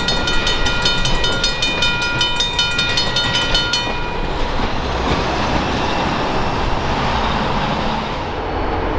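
Grade-crossing signal bell ringing rapidly over the rumble and rattle of a freight train of tank cars rolling past. The bell stops about four seconds in, and the wheels go on rumbling on the rails.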